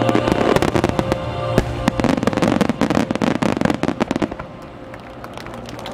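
Starmine fireworks going off: a dense run of crackling and popping from many bursting shells and crackle stars, thinning out after about four seconds. Music plays under it.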